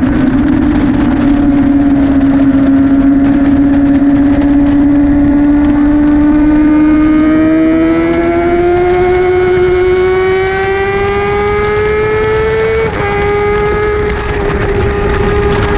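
Honda CBR600RR's inline-four engine at high revs under throttle, its pitch climbing slowly as the bike gains speed out of a long corner. About thirteen seconds in the pitch drops sharply as it shifts up a gear, then the note holds steady. Wind rush runs underneath.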